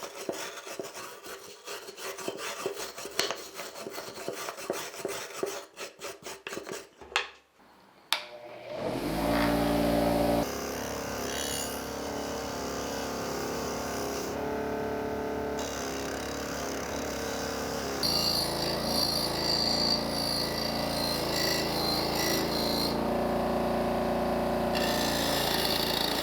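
Rapid rubbing and scraping strokes of hand tool work for about eight seconds. Then a power tool starts and runs steadily, its pitch shifting in steps a few times.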